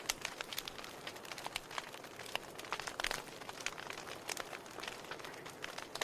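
Wood fire burning in a fireplace: a steady hiss with frequent irregular crackles and sharp pops, one of the louder pops about three seconds in.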